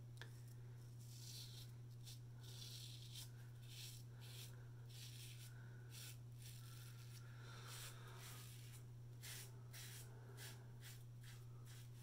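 GEM Pushbutton single-edge safety razor scraping through lathered stubble in a run of short, faint rasping strokes, over a low steady hum.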